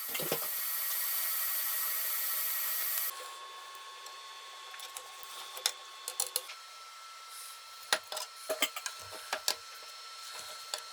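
A power tool runs steadily for about three seconds, then drops to a quieter steady whine, with a series of sharp clicks and taps in the second half.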